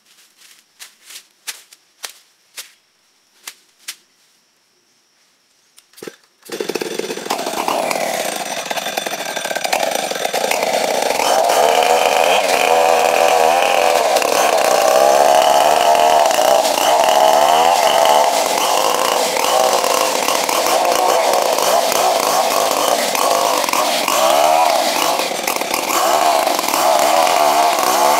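A row of sharp knocks, then from about six seconds in a chainsaw runs loudly under load, its pitch wavering as it cuts along a wooden plank.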